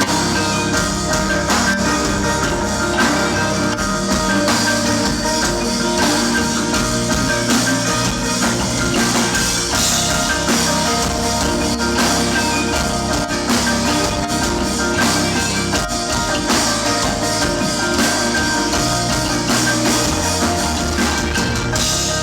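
Live rock band playing loudly: drum kit and guitars with bright, bell-like melodic tones over a steady beat.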